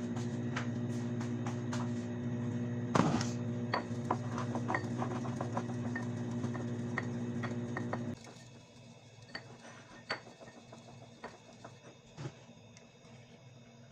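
Cups, spoons and crockery clinking and knocking during tea-making, over a steady appliance hum. The hum cuts off about eight seconds in, leaving only a few light clinks.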